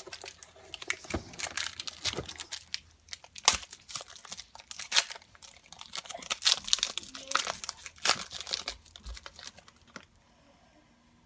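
Foil trading-card pack wrapper crinkling and tearing as it is opened by hand: a run of irregular crackles that stops about ten seconds in.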